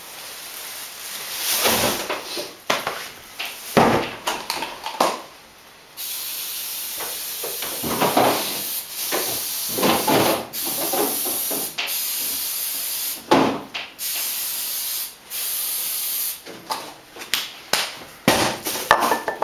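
A spray hissing in several long bursts of a second or two each, with knocks and clatter before and after.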